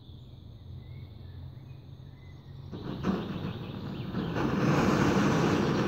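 Robens Fire Midge titanium gas stove burner hissing as its valve is turned up: a quiet low flame until about three seconds in, when the hiss rises sharply and steps up again to a loud, steady rush of high-pressure gas burning.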